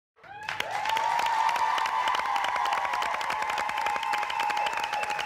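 Audience clapping and cheering, starting just after the opening, with a long held high-pitched scream of cheering over the dense claps.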